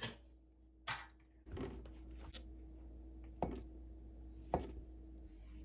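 Kitchen knife slicing a block of canned pork luncheon meat on a plastic cutting board: a few separate light knocks of the blade on the board, about a second apart, over a faint steady hum.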